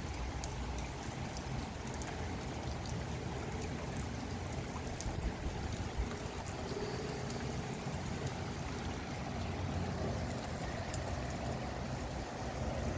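Gusty wind and rain: a steady low wind rush buffeting the microphone, with rain falling and scattered drips.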